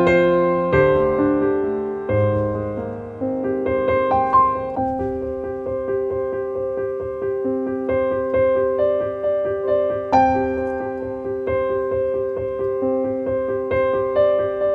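Background music: a gentle piano piece with a slow repeating melody over sustained notes.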